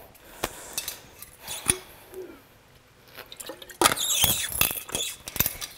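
Scattered soft clicks and knocks, then a denser stretch of rustling and scraping from about four seconds in, as someone moves about on a mat and handles small objects.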